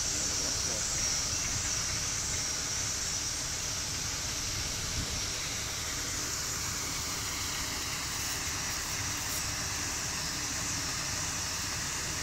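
Steady outdoor background noise: an even high hiss over a low rumble, with no distinct event.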